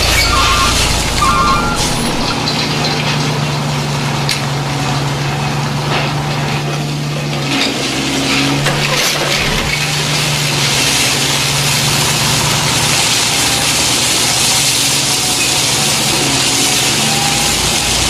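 RC dump truck's electronic sound module: reversing beeps that stop about a second and a half in, then a steady engine hum under a continuous hiss with scattered clicks.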